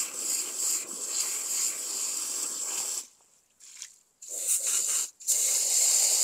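Water spraying from a hose onto rock-tumbler stones and barrels being rinsed: a steady hiss that cuts off about halfway through, then two more spurts near the end, the last one the longest.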